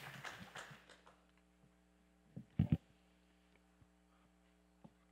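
Steady electrical hum, with shuffling that dies away in the first second and a couple of low thumps about two and a half seconds in.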